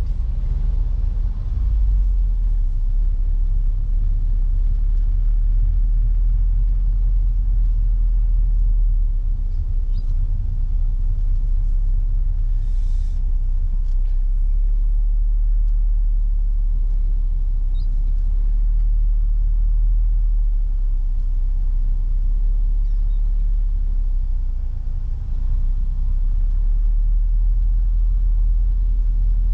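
Peugeot 406 car on the move: a steady low rumble of engine and road noise, with a brief hiss about halfway through.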